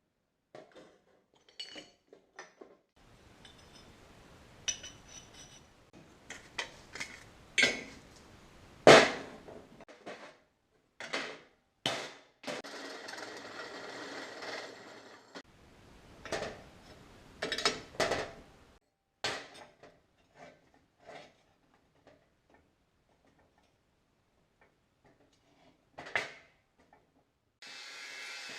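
Metal suspension parts and hand tools handled at the workbench: scattered clanks, knocks and taps of varying strength, the loudest about nine seconds in. A steady machine noise starts near the end.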